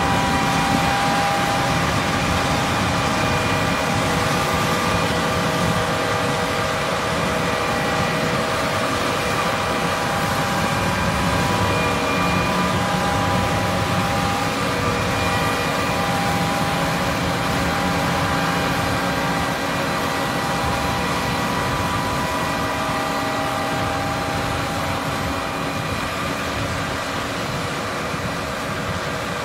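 John Deere S770 combine harvester running under load while harvesting: a dense steady diesel drone with several high, steady whining tones on top. It fades slowly near the end as the machine moves away.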